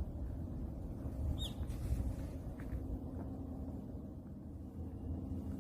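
A low, steady rumble with a faint hum, with a couple of brief, high bird chirps over it. One chirp is a quick downward glide about a second and a half in, and a fainter one follows about a second later.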